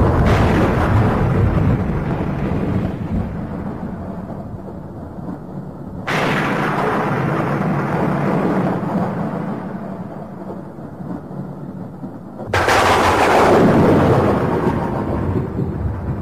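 Thunderclaps: a rumble already going, then two sudden cracks about six seconds apart, each rolling off into a low rumble over several seconds.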